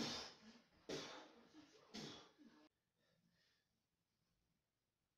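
A man's three heavy exhales about a second apart, the first the loudest, as he breathes hard from lifting weights.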